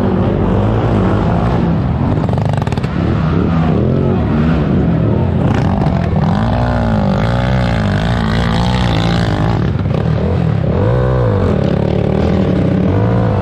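Racing quad ATV engines revving hard under load on a steep dirt hill climb, the pitch repeatedly rising and falling as the throttle is worked, with two or more engines overlapping in the middle stretch.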